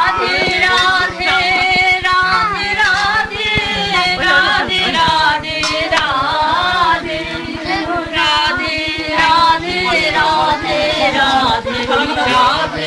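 Kirtan: voices singing a devotional chant.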